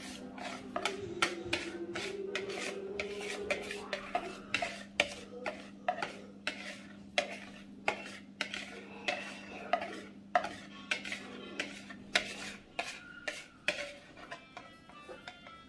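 Batter being scraped out of a plastic mixing bowl into a silicone cake mould, the spatula scraping and tapping against the bowl about twice a second, over a steady low hum that stops near the end. Music comes in near the end.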